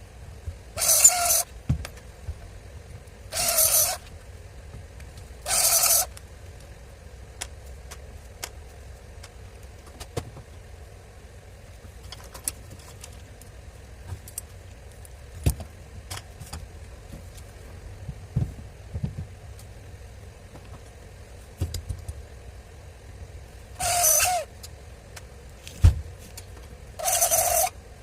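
Bench repair work: five short bursts from a tool, each under a second, with small clicks and knocks of parts being handled in between.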